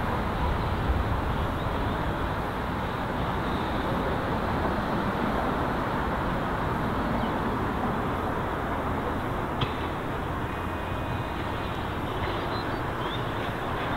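A1 Pacific steam locomotive 60163 Tornado passing slowly with its coach: a steady train rumble without distinct beats, and a single sharp click near the middle.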